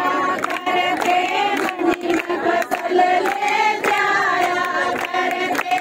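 Women singing a rousing song together, with a crowd clapping along in time about twice a second.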